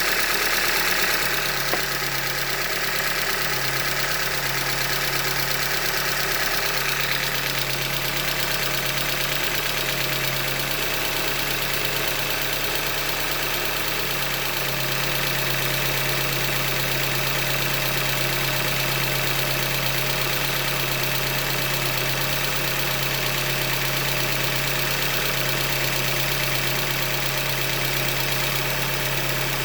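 2015 Hyundai Elantra's four-cylinder engine running at idle with an engine knock, the sign of a failed short block that the owner puts down to a manufacturing defect. A brighter, higher sound on top eases off after the first several seconds.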